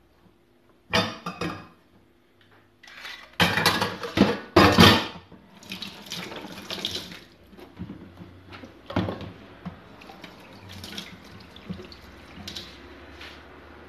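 Metal kitchenware, a potato ricer and a pot, clattering in a stainless-steel sink, loudest a few seconds in. Then the kitchen tap runs water into the sink while things are rinsed, with a few clinks.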